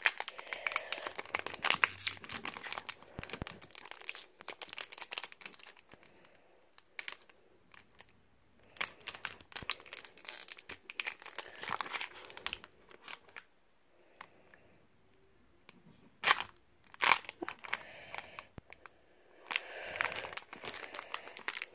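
A Pokémon card booster pack's foil wrapper being torn open and crinkled by hand: irregular crackling and tearing with short pauses, loudest in bursts in the second half.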